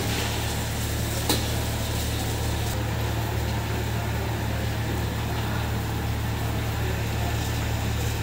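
Gas wok burner running with a steady low rumble, with one light click about a second in.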